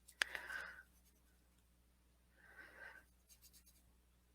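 Faint scratching of an oil-based mechanical colored pencil on paper: a light tap as the tip touches down, then two short colouring strokes about two seconds apart.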